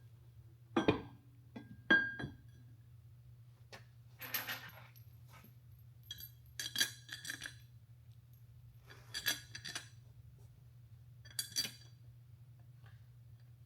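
Metal transmission parts clinking and ringing as they are handled and fitted during tail shaft assembly: a series of sharp metallic clinks, some with a brief ringing tone, coming every couple of seconds over a steady low hum.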